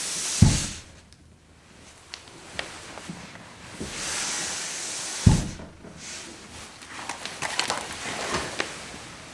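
Foley slide: an object sliding with a hissing scrape that stops in a low thud, twice, about five seconds apart, followed by a scatter of small clicks and rattles.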